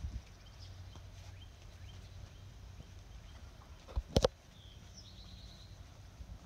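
Footsteps of someone walking around a parked truck, with birds chirping in the background and a sharp double knock about four seconds in.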